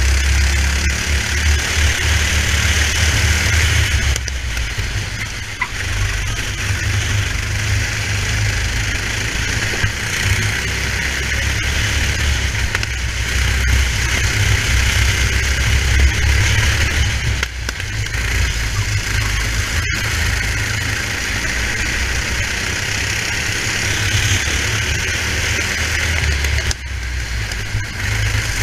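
Racing kart engine running at speed, heard through an onboard camera with heavy low wind rumble. The sound dips briefly a couple of times, and there is one sharp click about twenty seconds in.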